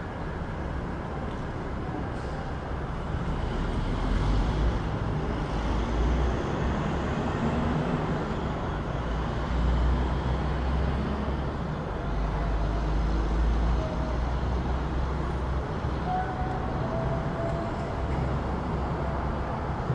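City street traffic: a steady low rumble of vehicle engines and tyres that swells and eases as vehicles pass.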